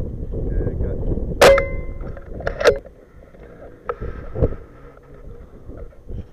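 Single shot from a .22 Kral Puncher Empire PCP air rifle: one sharp crack with a brief metallic ring, the loudest sound here. About a second later come two quick sharp clicks, then a couple of softer knocks, with wind on the microphone before the shot.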